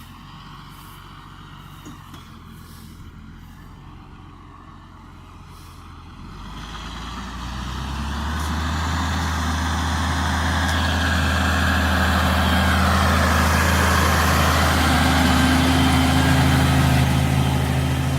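Valtra T171 tractor's diesel engine running, quiet at first, then growing much louder from about six seconds in and holding a steady loud drone.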